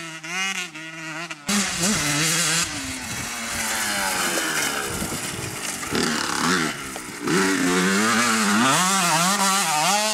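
Motocross dirt bike engines revving up and down as they accelerate and shift, changing abruptly about a second and a half in. The louder part near the end is a Honda CR125R two-stroke riding close by.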